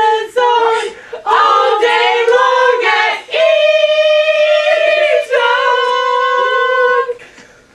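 Voices singing a chant, ending in two long held notes. The singing stops about seven seconds in.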